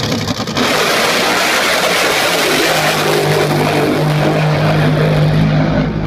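Racing speedboat's engine running flat out as the boat passes: a loud, even noise with a steady low drone that grows stronger about three seconds in.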